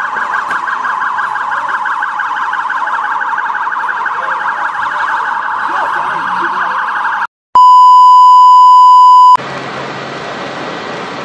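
Emergency-vehicle siren in a fast warble, running for about seven seconds. After a brief dropout comes a loud, pure beep tone for about two seconds. When the beep cuts off, a steady rushing noise follows.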